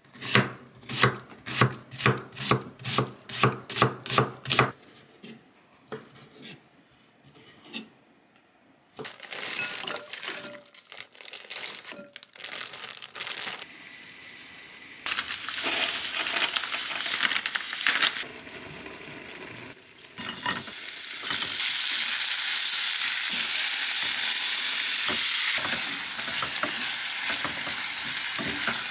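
A kitchen knife chopping an onion on an end-grain wooden cutting board, about a dozen quick strokes. Later, shrimp, bacon and onion sizzle in a frying pan as a spatula stirs them, a steady sizzle through the last nine seconds or so.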